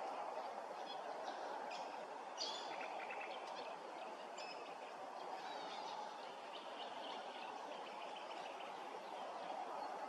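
Small birds calling in short, high chirps and twitters, busiest a little over two seconds in, over a steady low background rumble.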